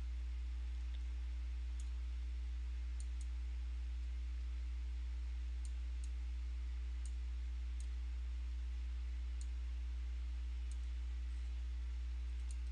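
Computer mouse clicking, about a dozen faint clicks spaced irregularly as mask points are placed around a shape, over a steady low hum.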